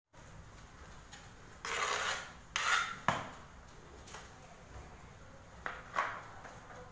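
Ceramic tiles scraping and rubbing against tiles as they are slid and set on a tiled floor: two longer rasping scrapes, a sharp click just after, and two shorter scrapes near the end.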